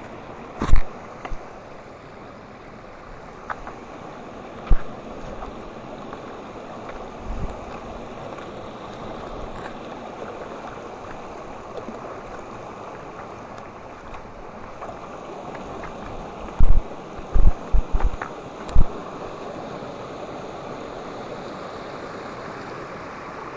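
A stream rushing steadily over small cascades. Several short, loud, deep thumps break in: one about a second in, one near five seconds, and a quick cluster of them around seventeen to nineteen seconds.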